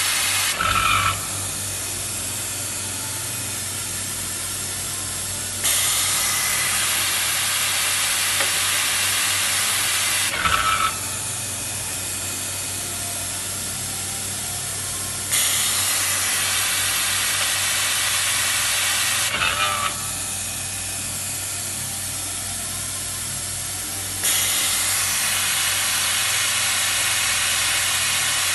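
CNC capacitor-discharge stud welder running automatically. It repeats a cycle about every nine seconds: a loud air hiss lasting about five seconds ends in a cluster of clicks with a brief squeak, then a quieter steady hiss. A low hum runs underneath throughout.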